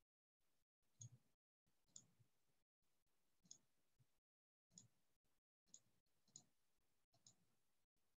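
Faint clicks at a computer, about seven short clicks at irregular intervals, with a faint background hiss cutting in and out between them.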